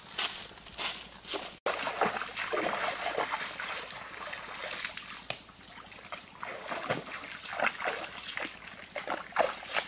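Water splashing and sloshing in irregular bursts, with a brief dropout about one and a half seconds in.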